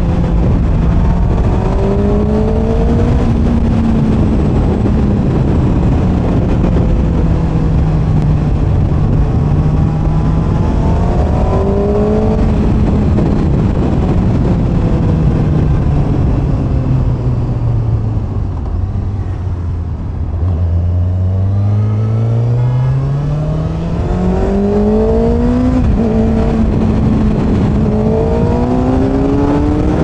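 Kawasaki ZX-6R's inline-four engine on its stock exhaust, heard from the saddle over wind rush. The engine pitch rises and falls gently with the throttle and sinks low as the bike slows about two-thirds of the way through. It then climbs steeply under hard acceleration, with a brief dip in pitch near the end.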